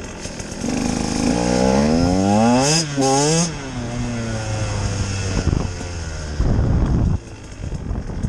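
Husqvarna TE 150 single-cylinder two-stroke engine accelerating hard, its pitch rising, with a brief dip about three seconds in before it climbs again. The engine then falls off as the throttle closes and runs steadily. A short, rough, louder burst comes about six and a half seconds in.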